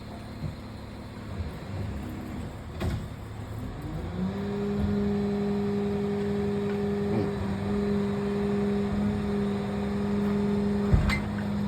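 A motor starts about four seconds in, rises to a steady low hum and runs on evenly, with a few light knocks and one sharp knock near the end.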